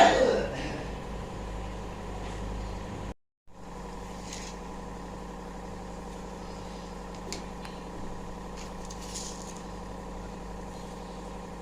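Steady mechanical hum with a few faint soft clicks; the sound cuts out for a moment about three seconds in, then the hum resumes.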